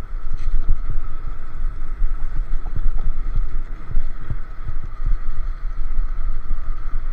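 Wind buffeting the microphone during a ride on a Solar P1 Pro electric scooter: an uneven low rumble with irregular thumps, and a steady high whine underneath.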